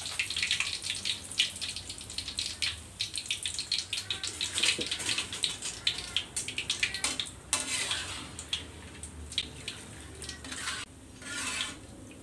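Hot cooking oil in a wok crackling and sizzling as crispy-battered catfish is deep-fried and lifted out. The crackle is dense at first and thins out in the second half.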